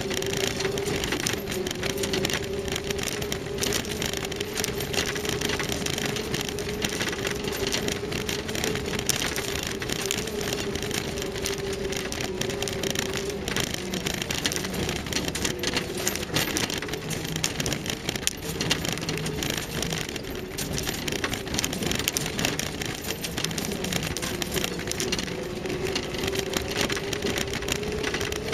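Land Rover Series III driving slowly over a rough stony track: the engine running with a steady tone, over a constant crackle and rattle of stones under the tyres and the jolting vehicle.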